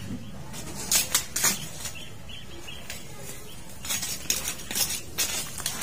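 Weeds and leaves rustling and crackling as they are pulled and handled, in short irregular bursts: a cluster about a second in and more toward the end.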